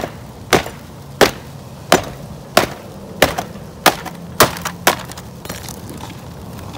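A hand hammer striking a flat pry bar, driving it in behind the old chimney's metal flashing, about nine sharp blows at an even pace that stop about five seconds in.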